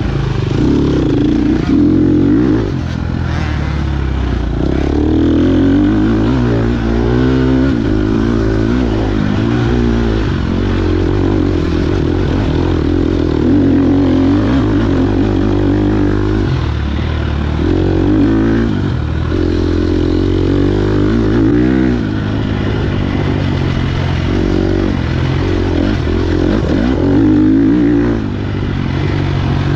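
KTM 250 XC-F dirt bike's single-cylinder four-stroke engine, revving up and down over and over as it is ridden hard, with brief drops in revs between pulls.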